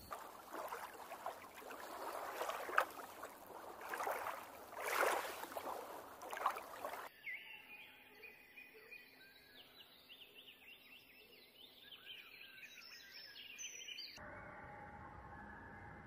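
Spliced nature ambience: for about seven seconds a rushing, noisy sound with louder surges, then a cut to many birds chirping and twittering, then a cut near the end to a steady droning chorus.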